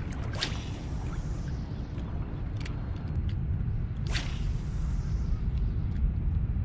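Wind rumbling steadily on the microphone, with two fishing casts, about half a second in and again about four seconds in: each a quick swish of the rod and line running off a spinning reel, trailing off over about a second. A few small clicks of the reel come between the casts.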